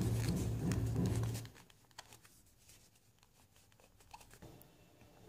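Plastic nail tips on a practice wheel being wiped with a lint-free wipe to degrease them: short scratchy rubbing and clicks over a steady low hum. About a second and a half in, the hum and rubbing stop, leaving near quiet with a few faint ticks.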